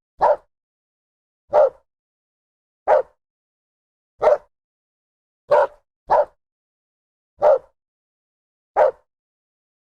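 A dog barking in single sharp barks, eight in all, about one every second and a quarter, with two barks close together past the middle. There is dead silence between the barks.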